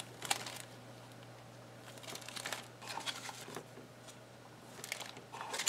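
Faint rustling and crinkling of packaging, with scattered small clicks, as the contents of a dash cam box are handled and unpacked.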